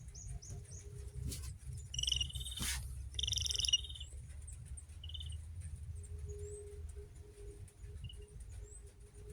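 Bird calling: two short rattling calls about two and three seconds in and a brief one about five seconds in, with a sharp knock between the first two, over a low rumble.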